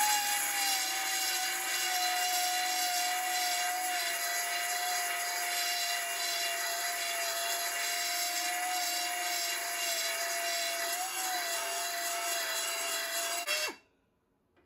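Mini belt sander with a 60-grit belt grinding weld beads flush on sheet-steel body panel: a steady whine that sags slightly in pitch as it bears on the metal. It cuts off abruptly near the end.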